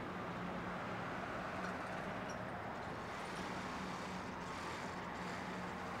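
Diesel engines of a Caterpillar wheel loader and a Caterpillar 320C tracked excavator running steadily under working load, a steady low engine drone.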